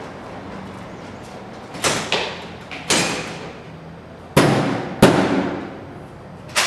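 Heavy bangs on a pair of double doors, about six at uneven intervals, each ringing on with a long echo. The loudest two come about four and a half and five seconds in.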